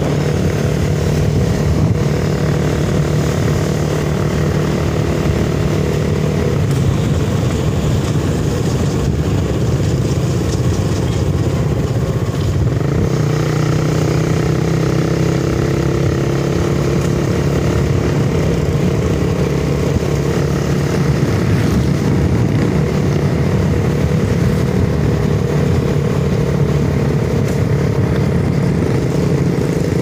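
Motorcycle engine running steadily at cruising speed, heard from the seat while riding, its note shifting slightly about halfway, over a hiss of wind and road noise.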